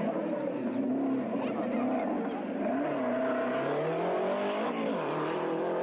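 Renault 5 rally car's engine revving hard as it passes at speed, its pitch climbing and dropping several times.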